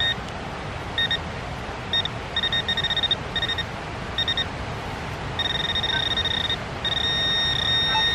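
Handheld metal-detecting pinpointer beeping: short single beeps about a second apart, then quick runs of beeps, then a long steady tone over the second half. The beeping quickens and holds as the probe closes in on a buried coin in the dug soil.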